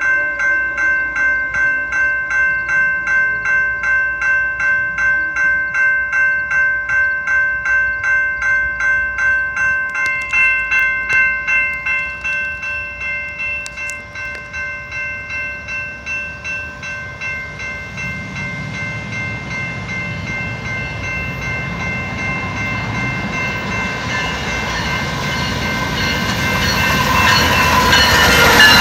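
Railroad crossing bell ringing about twice a second at a grade crossing with its signals active. It grows fainter after about twelve seconds while an approaching BNSF diesel freight train's rumble swells, loudest at the end as the locomotive draws alongside.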